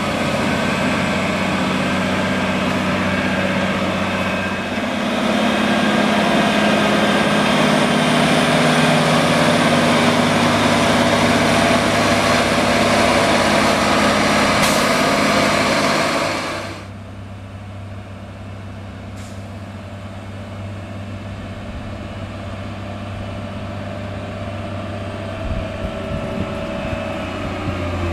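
Wheel loader's diesel engine running loudly as the machine drives over a clamp of chopped maize silage to compact it. Just past halfway through, the sound drops suddenly to a much quieter, steady engine hum.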